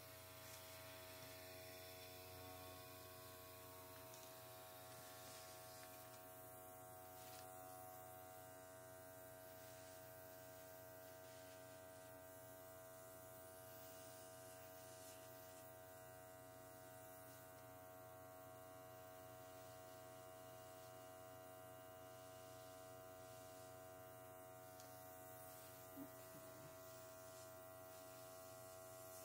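Faint steady hum of a small airbrush compressor motor running, with one light tick near the end.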